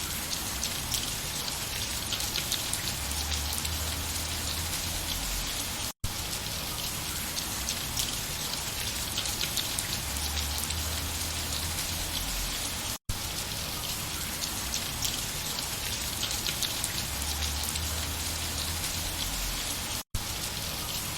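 Steady rain falling, a dense patter of raindrops on a surface. It cuts out for an instant three times, about seven seconds apart.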